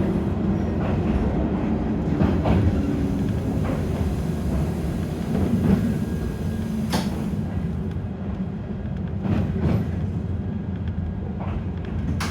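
Toyama Chihō Railway 10030-series electric train running, heard from inside the car: a steady low rumble with irregular sharp clicks as the wheels pass over rail joints, the loudest about seven seconds in.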